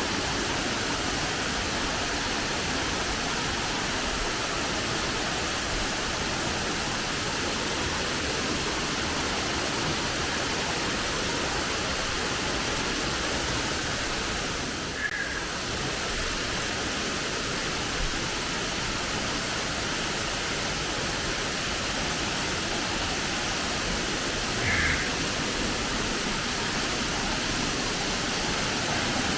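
Steady rush of a waterfall pouring into its pool, an even roar of falling water that doesn't change.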